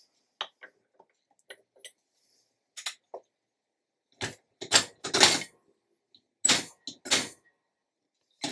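Powder measure being cycled to charge rifle cartridge cases: a string of sharp metal clicks and clacks from the measure's handle and the brass cases, sparse at first, with a quick run of louder knocks between about four and seven seconds in.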